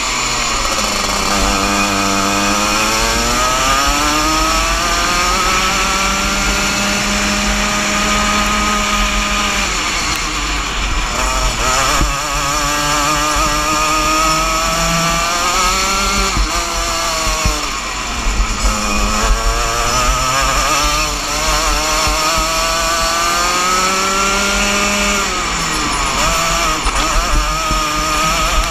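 Rotax Junior Max 125cc two-stroke kart engine at racing speed, its revs climbing steadily along each straight and falling sharply into each corner, about five times.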